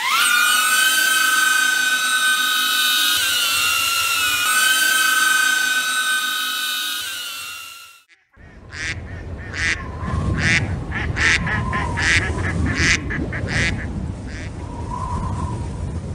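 DJI Avata FPV drone's propellers spinning up at takeoff and hovering: a loud, high-pitched whine of several tones, wavering slightly, that cuts off suddenly about eight seconds in. After a brief gap comes a different sound, a low rumble with a run of short, sharp sounds about one or two a second.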